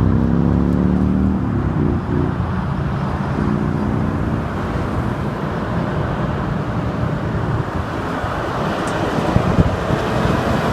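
Interstate traffic passing close by. A semi truck's diesel engine drones low and dies away over the first few seconds, then steady tyre and road rush with wind on the microphone. No horn sounds.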